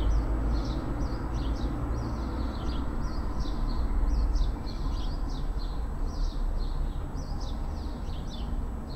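Small birds chirping and twittering in quick, high notes throughout, over a steady low rumble.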